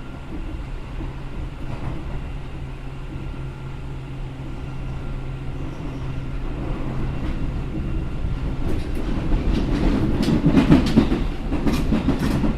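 Interior running sound of a Seibu New 2000 series electric train with field-chopper control: a steady running hum with faint steady tones. From about nine seconds in, it gives way to a run of sharp clicks and heavier rumble as the wheels clatter over rail joints.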